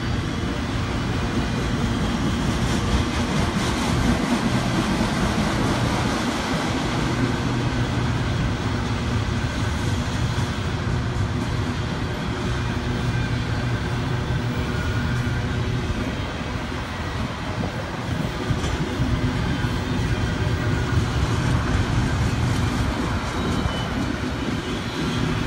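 Freight train cars rolling past over a bridge, autorack cars followed by double-stack container well cars, making a steady rumble of wheels on the rails.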